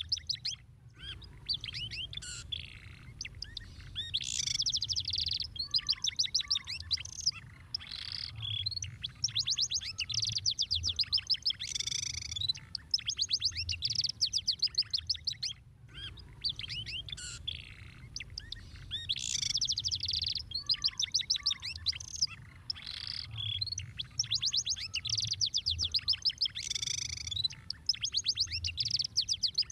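Domestic canary singing: a long, high-pitched song of rapid trills and chirped phrases with brief pauses between them, the same passage coming round again about halfway through. A low hum runs underneath.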